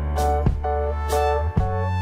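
Background music: held keyboard chords over a deep bass, with a beat struck about once a second.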